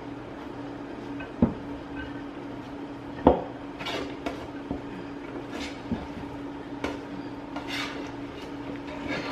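Kitchen cookware being handled: a utensil and pots clinking, knocking and scraping, with a couple of sharp knocks and several short scrapes, over a steady low hum.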